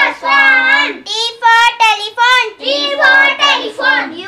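Children chanting the English alphabet rhyme ('... for ...') in a sing-song voice.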